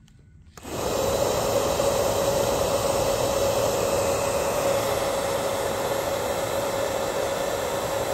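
Handheld bubble gun running: its fan motor whirs steadily with one held hum, blowing out a dense stream of bubbles. It switches on about half a second in and cuts off sharply near the end.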